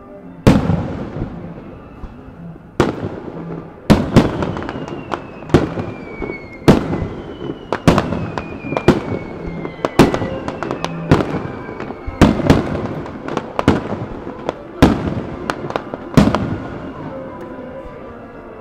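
Starmine fireworks barrage: aerial shells bursting in quick succession, about twenty sharp bangs, with several long whistling tones falling in pitch between them. Music plays faintly underneath.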